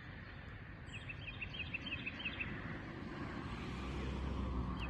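A bird singing a quick run of repeated high chirps for about a second and a half, over outdoor background noise with a low rumble that grows louder toward the end.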